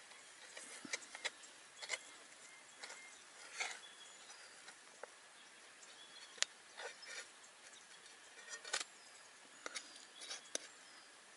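A small metal utensil scraping and tapping in a frying pan as a pancake is loosened and turned, giving about a dozen irregular light clicks and scrapes.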